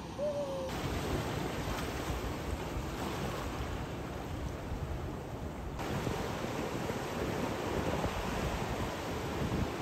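Ocean surf breaking and washing ashore, with wind buffeting the microphone. A short whistled note sounds right at the start.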